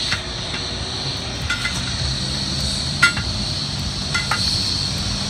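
Steel tire iron clinking against the lock ring and steel rim of a multi-piece truck wheel as it is pried around the rim, checking that the ring is locked in place. There are about six short metallic clinks, irregularly spaced, the loudest about three seconds in.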